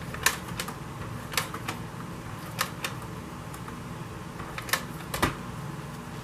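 Irregular light clicks and taps of small paper card pieces being handled and set down on a craft table, about nine in all, the sharpest just after the start and a close pair near the end, over a steady low hum.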